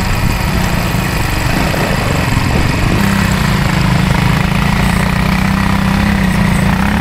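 Small ATV buggy engine running steadily close by, its hum growing fuller and steadier about three seconds in.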